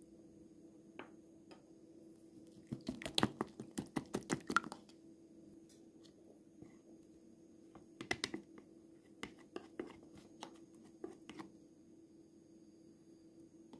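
Wire whisk clicking against a glass bowl while beating egg into a flour batter: a quick run of clicks about three seconds in, another short run around eight seconds, then scattered single taps. A faint steady hum runs underneath.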